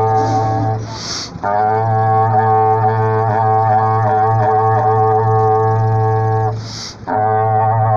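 Berrante, the Brazilian cattle-herder's horn, blown in long sustained low blasts. It breaks for a short breath about a second in and again near the end, and the long middle blast wavers in pitch.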